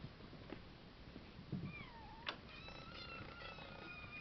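Domestic cats meowing: a short meow that falls and rises in pitch about a second and a half in, then a longer drawn-out call near the end.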